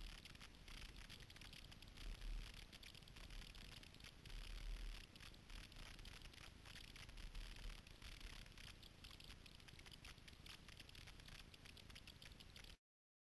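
Faint kayak paddle strokes in lake water: a steady patter of drips and splashes from the paddle blades, swelling louder about every two to three seconds as a blade digs in, with low thuds on the boat.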